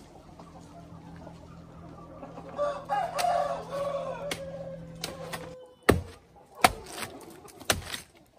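A rooster crows for about three seconds over clucking chickens. Then, about six seconds in, a machete chops several times into the soft trunk of a banana plant; the sharp chops are the loudest sounds.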